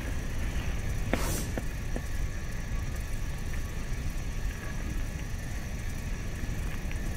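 Steady low rumble of wind across the microphone, with one sharp click a little over a second in and two fainter ticks soon after.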